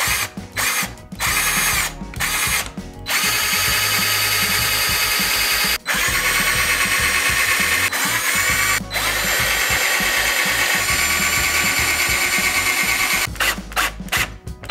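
Power drill running in a few short bursts, then one long steady run broken by two brief pauses, then short bursts again near the end.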